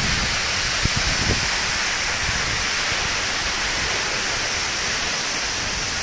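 Waterfall: a steady, even rush of falling water, with two brief low thumps about a second in.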